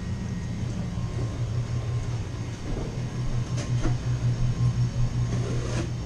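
Steady low mechanical hum that pulses a little louder in the second half, with a few light knocks.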